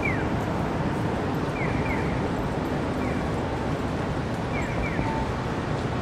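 Steady city street ambience with a constant background rush, cut through by short high chirps that fall in pitch, often in pairs, repeating every second or two.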